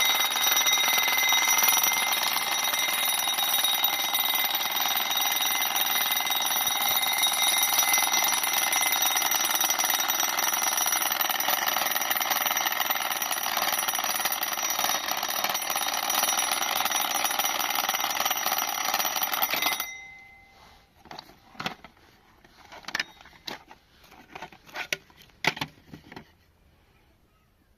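Old alarm clock's bell ringing continuously for about twenty seconds, then cutting off suddenly. A scattering of small clicks and knocks follows.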